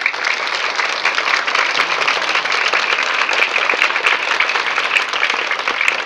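A crowd of schoolchildren clapping their hands in loud, steady applause.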